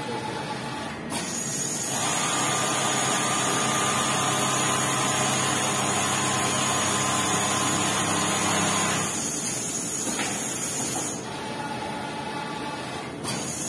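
Richpeace CNC template sewing machine stitching quilting lines through a jacket panel held in a PVC template: a steady mechanical whir from the running sewing head. It drops to a quieter hum for a few seconds after about nine seconds in and picks up again near the end.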